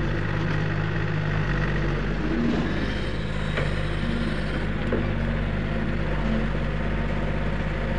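Diesel engine of a compact CAT hydraulic excavator running steadily under load while it dumps and digs sand. There are a couple of faint knocks around the middle.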